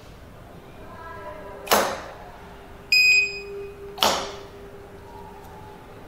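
A single short electronic beep from the access-control keypad's built-in buzzer, of the kind that confirms a card read or a key entry. Sharp knocks come about a second before it and a second after it.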